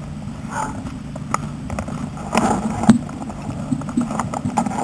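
Rattles, scuffs and scattered sharp clicks from a catch pole with a camera mounted on it as a caught black Labrador is led along on it, over a steady low rumble.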